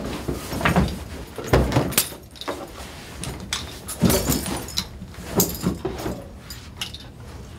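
An office door opening, with a string of short knocks and thuds as people move about in a small room.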